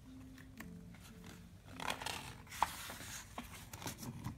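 A picture-book page being turned by hand: paper rustling and sliding for about a second and a half, with a few small taps.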